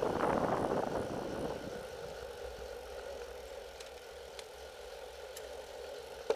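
Wind rushing over the bike-mounted camera's microphone dies away over the first couple of seconds as the bicycle slows to a roll. A quieter steady hum is left, with a few faint clicks and one sharp click near the end.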